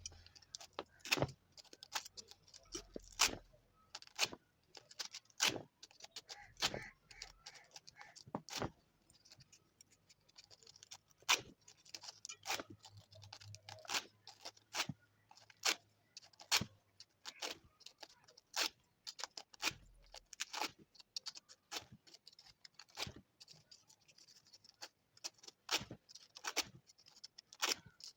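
Irregular sharp clicks and light metallic taps, about one or two a second, over a faint hiss: small metal parts and tools being handled while working on an electric dry iron.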